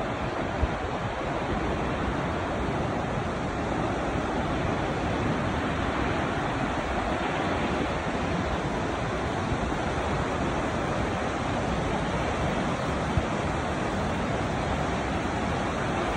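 Steady rushing roar of Takakkaw Falls, the falling water making an even noise without a break.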